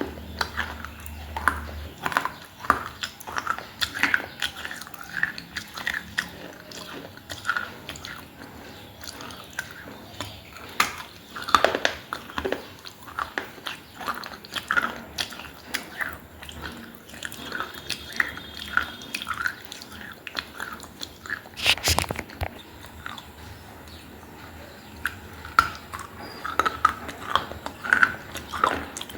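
Close-miked biting and chewing of baked clay, irregular crisp crunches and mouth clicks, with one sharp loud snap about 22 seconds in.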